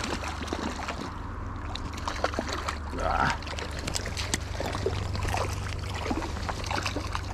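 A hooked trout splashing at the lake surface and water sloshing as a landing net is worked in the shallows, with scattered clicks and knocks of tackle handling. A brief rising sound about three seconds in stands out above the rest.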